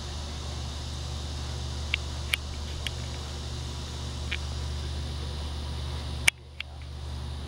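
Outdoor background: a steady low rumble with a few faint short clicks, and one sharp click about six seconds in after which the level briefly drops.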